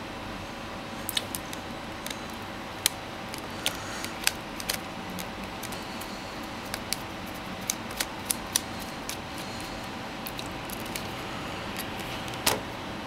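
Small screwdriver clicking against the tiny screws and plastic casing of a T-Mobile G1 phone as the screws are taken out: light, irregular clicks and ticks, with a louder knock near the end.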